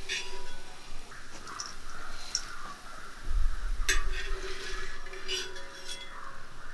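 Metal utensil stirring and clinking in a cooking pan, with a steady sizzle of frying in hot oil underneath.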